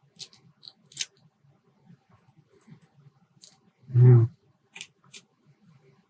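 Small metal clicks and light scraping from a shim being worked against a Sargent LFIC lock core. About four seconds in there is one short, louder low sound.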